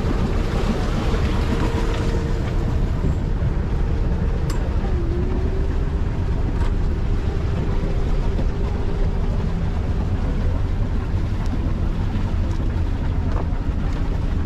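Boat engine running steadily with a low rumble, a faint steady tone riding over it.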